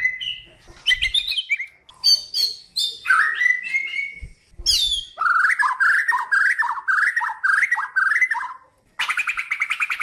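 White-crowned shama (Bornean murai batu) singing a varied song of clear whistles and chirps, then a run of repeated warbled phrases, and a fast buzzing trill of rapid notes near the end.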